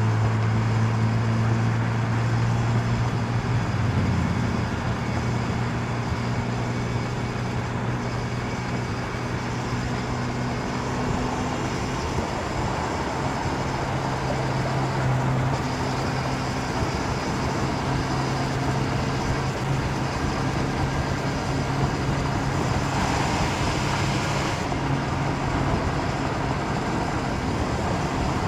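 Motorcycle engine, the 1992 Honda CB750 Nighthawk's air-cooled inline-four, running at steady revs, with a shift in pitch about four seconds in.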